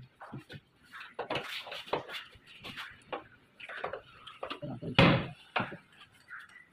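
Plywood pigeon cage being handled: its hinged wooden door opening and closing with scattered knocks and clicks, and one loud thump about five seconds in.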